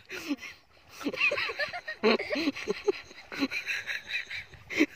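People's voices: short bursts of talk and laughter, broken by a brief pause about half a second in.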